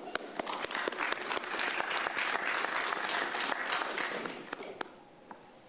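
Applause from a small audience in a meeting chamber, many hands clapping at once, thinning out and dying away about four and a half seconds in.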